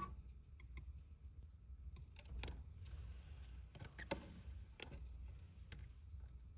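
Faint scattered small clicks and taps, about eight of them at irregular intervals, over a low steady hum.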